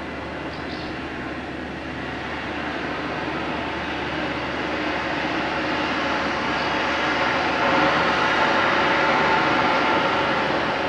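The Airbus A310-304F freighter's General Electric CF6-80C2 turbofan engines running during pushback: a steady jet rush and whine that grows louder about seven seconds in.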